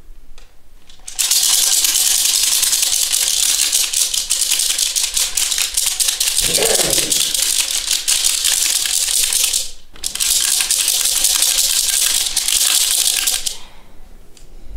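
A traditional healer's beaded gourd rattle, shaken fast and steadily. It starts about a second in, breaks off briefly about ten seconds in, then starts again and stops near the end.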